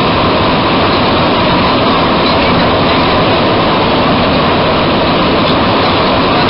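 Bombardier MR-73 rubber-tyred metro train running at speed through a tunnel, heard from inside the car as a loud, steady rushing noise.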